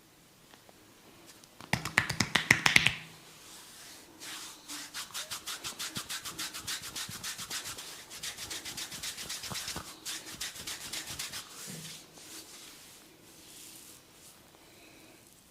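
Hands massaging a person: a quick burst of about ten sharp slaps about two seconds in, then a long run of fast, even rubbing strokes, about four or five a second, that stops about twelve seconds in.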